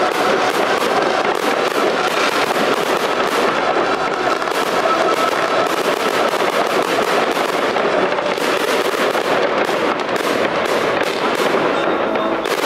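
Fireworks going off in quick succession: a dense, unbroken stream of bangs and crackles from aerial shells and ground fountains.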